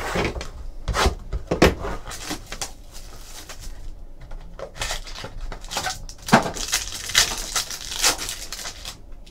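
A small cardboard trading-card box is handled and opened with a series of sharp knocks and scrapes. Later a foil-wrapped card pack crinkles and tears open.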